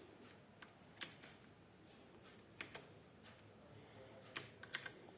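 Outemu Blue clicky mechanical key switches on a Cosmic Byte Vanth keyboard, pressed a few separate times. The clicks are faint and scattered, with one about a second in, a pair near the middle, and a quick cluster near the end.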